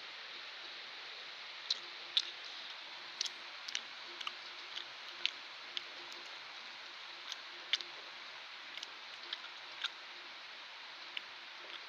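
Kittens eating, their chewing making sharp, irregular small clicks and smacks, about a dozen over several seconds, over a steady hiss.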